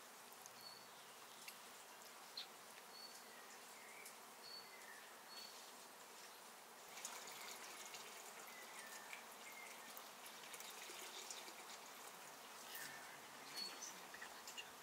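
Faint outdoor garden ambience, near silence: scattered short high bird chirps and a few light clicks over a soft hiss that rises a little for several seconds past the middle.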